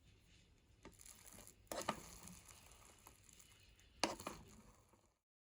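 Faint handling noises, rustling and crinkling, with two louder sharp sounds, one a little under two seconds in and one about four seconds in. The sound cuts off abruptly near the end.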